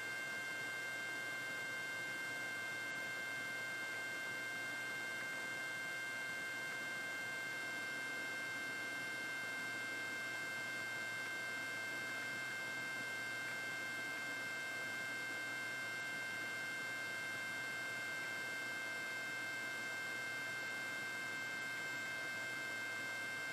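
Steady electrical hum with several high, unchanging whine tones over faint hiss. There is no rotor beat and there are no events.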